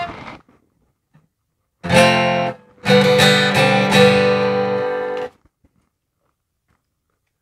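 Acoustic guitar strummed: one short chord about two seconds in, then a few more strums that ring out and are cut off suddenly.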